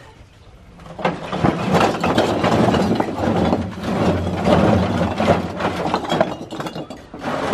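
A heavy engine running loudly, starting about a second in and dropping away near the end.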